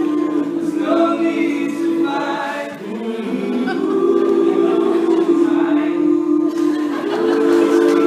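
Men's a cappella group singing held harmony chords in several parts, with a brief dip in loudness about three seconds in.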